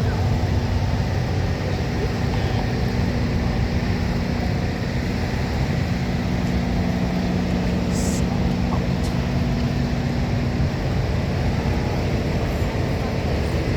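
City street traffic noise: a steady low engine rumble from a nearby motor vehicle, with a held hum that continues for several seconds and then eases off near the end.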